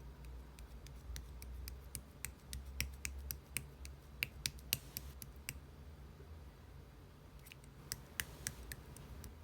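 Slime being squished and pressed by hand, making a run of sharp little clicks and pops, many in the first half and a few more near the end.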